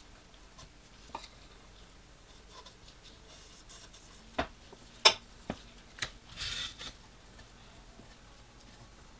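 Pieces of stained glass being handled on the work table: a few separate light clicks and knocks, the sharpest about five seconds in, and a short scratchy rub a little after six seconds.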